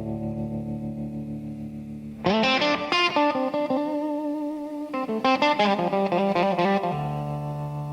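Rock music with distorted electric guitar: a held chord, then a quick run of notes starting about two seconds in, settling back into a held chord near the end.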